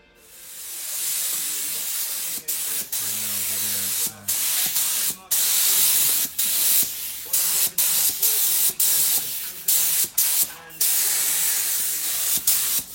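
Paint being sprayed: a loud hiss in repeated bursts, cut off briefly many times as the trigger or nozzle is let go, more often in the second half.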